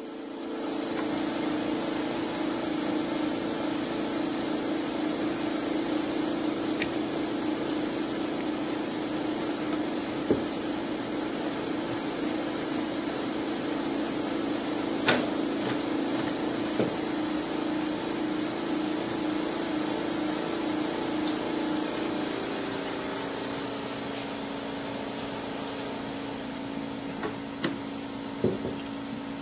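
Steady mechanical hum with a low drone, easing slightly about three-quarters of the way through, with a few light clicks now and then.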